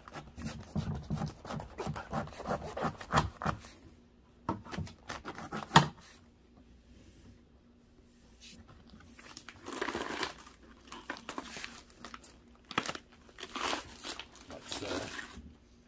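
A knife cutting through a firm head of late Dutch cabbage: dense crackling and tearing of the tightly packed leaves for about four seconds, then one sharp knock about six seconds in. After a quiet pause, softer rustling comes in bursts near the end.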